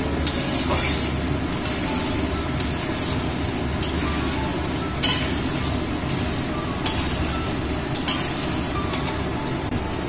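Paneer cubes sizzling as they shallow-fry in oil in a metal kadai. A flat spatula stirs them and now and then knocks or scrapes sharply against the pan.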